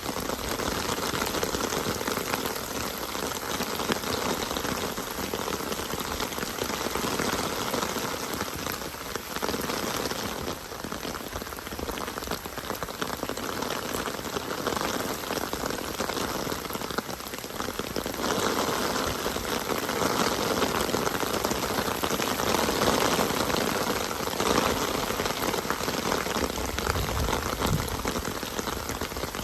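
Steady rain falling, an even wash of drops that swells and eases slightly in loudness.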